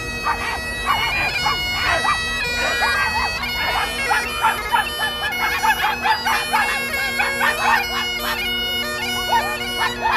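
Bagpipes playing a tune over a steady drone, with many people in a crowd barking and yelping like dogs over it, short barks coming several times a second.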